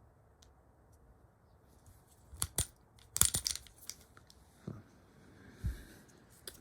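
Sharp metallic clicks and clacks of a Ruger Max-9 pistol being handled and its controls worked: two clicks about two seconds in, a louder quick cluster just after, then a few softer knocks.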